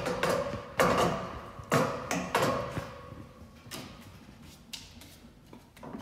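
Hanging rings on a ninja obstacle knocking and clanking as a climber swings from ring to ring, a sharp knock every half second to second with some ringing after the first few, thinning out over the last couple of seconds.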